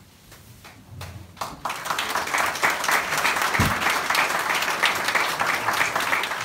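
Audience applauding: a few scattered claps at first, swelling into full, sustained applause about a second and a half in.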